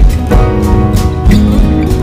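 Instrumental music led by plucked acoustic guitar, with a new note or chord every fraction of a second.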